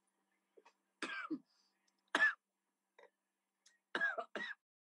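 Three short, non-speech vocal bursts from a woman, about a second apart, the middle one the loudest.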